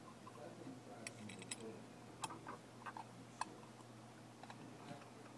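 Faint small metallic clicks and ticks of a pump's metal cover plate and its screws being handled and fitted by hand. There is a quick run of light ticks about a second in, then single clicks every so often.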